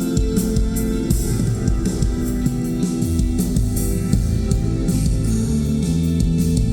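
Live rock band playing: drum kit and cymbals keeping a steady beat under electric guitar and bass, with no singing.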